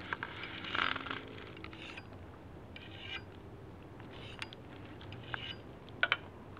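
A few light scraping strokes of a small hand-held sharpener drawn along a hatchet's steel edge, then two sharp clicks about six seconds in as the sharpener is set down on a wooden bench.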